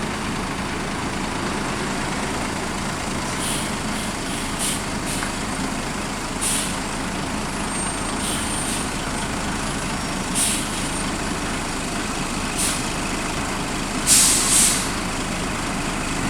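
A heavy bus's diesel engine running steadily, with short air-brake hisses every few seconds and a louder double hiss near the end.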